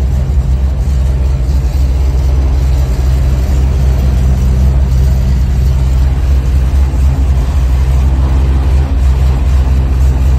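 Dodge Coronet's 440 V8 idling steadily, heard from inside the cabin, with the hiss of car-wash water spray and brushes over it.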